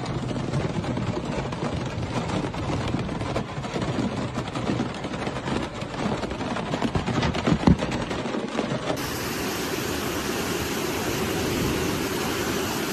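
Rushing muddy floodwater flowing through a street, with crackling knocks mixed in and one sharp knock about eight seconds in. About nine seconds in the sound turns into a smoother, brighter, steady rush of water.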